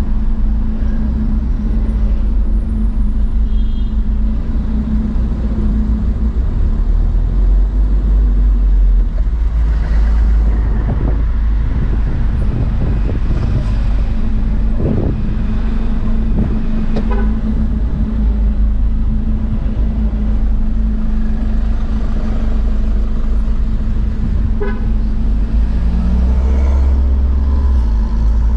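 Car engine and road rumble heard from inside a car in slow traffic, steady and low, with a couple of short car-horn toots about halfway through and again later.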